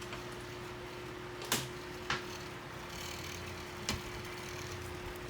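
Three short sharp clicks or taps, about 1.5, 2 and 4 seconds in, over a steady low hum with a faint constant tone.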